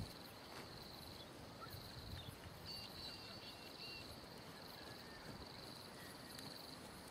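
Faint outdoor ambience of insects trilling at a high, steady pitch in on-and-off stretches, with a few short bird chirps about three seconds in; the trotting horse's hooves on the sand are barely heard.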